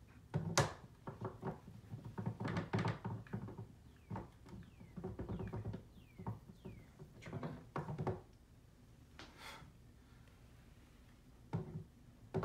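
Repeated knocks, clunks and handling noises as a large statue part is pushed and turned against its mount, trying to seat a magnetised peg that will not go in. There are a few short squeaks of parts rubbing about halfway through.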